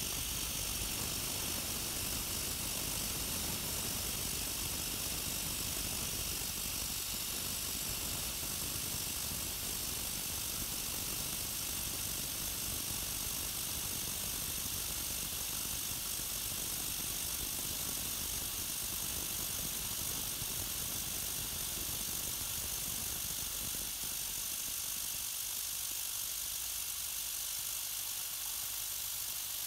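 Cincinnati vertical milling machine with a 1-inch four-flute carbide end mill, steadily cutting along the edge of a plasma-cut plate about a tenth of an inch deep under hand feed. A continuous hissing cut runs over the spindle motor's running sound, and the lower rumble eases somewhat near the end.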